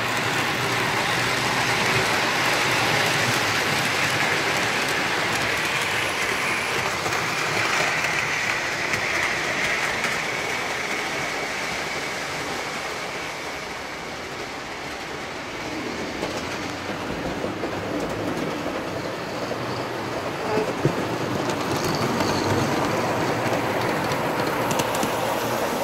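Model steam locomotive and freight cars running on the track, a steady clatter of wheels over the rails. It is loudest as the train passes close, fades about halfway through as it runs along the far side of the layout, then builds again near the end with a few sharp clicks.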